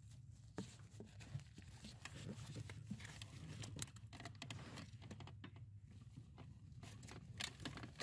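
Faint scattered clicks and rustling of hands working under a truck's dash, unplugging the plastic electrical connector from the brake light switch, over a low steady hum.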